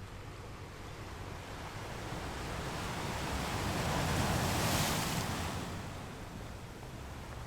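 Ocean surf: a wave swells in, breaks with a loud hissing wash about four to five seconds in, and draws back, over a steady low rumble of the sea.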